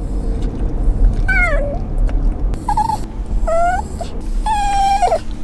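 Italian greyhound whining and crying in four high, varied cries: a falling one, a short one, a rising one, then a longer held cry that breaks off. A car's low rumble runs underneath.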